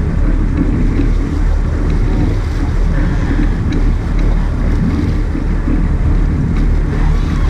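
Sport-fishing boat's engines running steadily: a low, even drone, with wind and water rushing over it.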